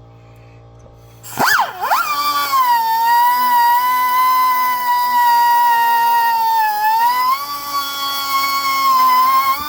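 Pneumatic rotary tool starting up about a second in with a high whine that swings in pitch, then runs steady, dipping briefly in pitch about seven seconds in before climbing back.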